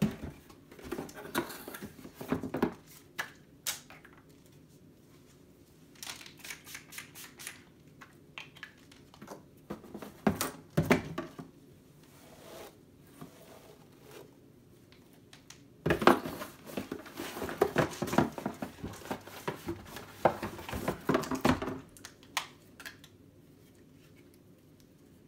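Handling sounds as items are taken out of a cardboard wine box and used: rustling, scrapes and taps in short bursts, with a longer busy stretch of rapid rubbing in the second half.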